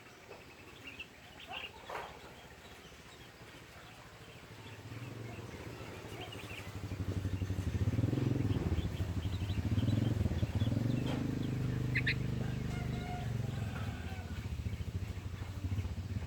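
Sooty-headed bulbul chicks giving short, high chirps throughout. From about five seconds in, a low engine hum swells up and becomes the loudest sound, rising and falling in pitch.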